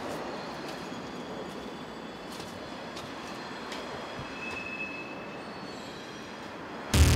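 Steady rumbling noise with a few faint clicks and a brief high squeal about halfway through. Loud electronic music cuts in abruptly near the end.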